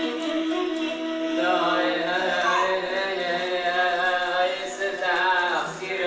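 Background music: a melodic line of held, wavering notes with occasional sliding pitch.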